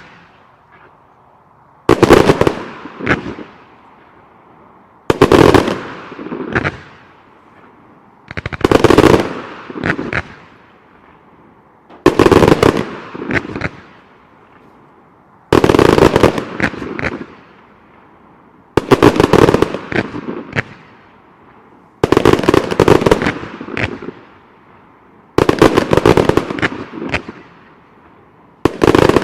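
Professional 1.3G fireworks firing in regular volleys, about one every three seconds: each volley is a rapid string of sharp launch reports and cracking bursts lasting a second or so, nine volleys in all.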